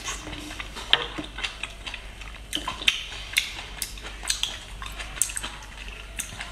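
Close-up eating of garlic-topped grilled oysters: wet chewing and mouth smacks, with many short, sharp clicks of oyster shells and chopsticks being handled.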